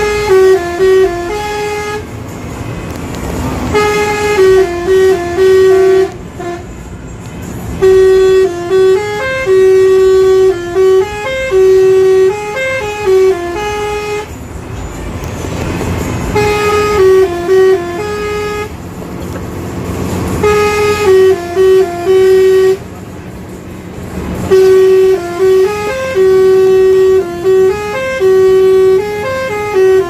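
Basuri multi-tone 'telolet' bus air horn playing a stepped melody in repeated phrases of a few notes, with short pauses between phrases, over the low rumble of engines.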